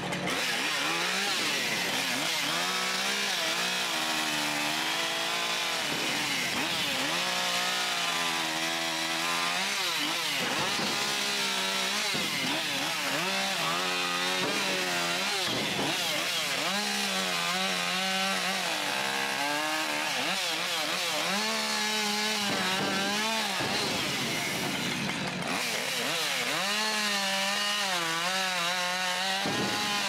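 Husqvarna 550 XP Mark II chainsaw, a 50 cc two-stroke, cutting sawmill slabs into firewood lengths. Its engine pitch rises and falls over and over as the chain goes into and comes out of each cut.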